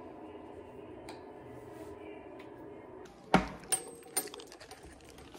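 Brass padlock with keys hanging from it being handled: a faint steady hum, then about three seconds in a sharp metallic clack followed by a few lighter clicks and a jingle of keys.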